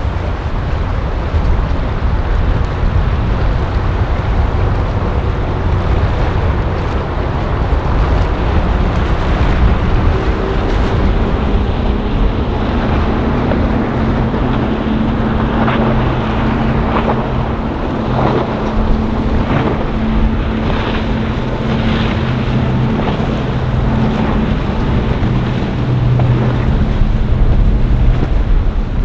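Wind buffeting the microphone over the wash of the sea. From about twelve seconds in, a passing motorboat's engines can be heard running steadily, with a few short sharp slaps in the middle.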